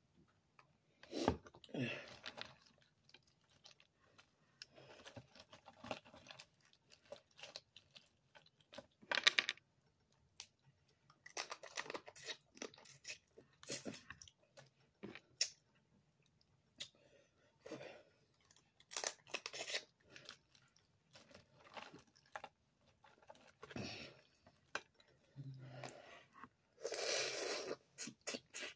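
Boiled crawfish being peeled and eaten close to the microphone: shells cracking and tearing and wet chewing in irregular short bursts, with a longer burst near the end.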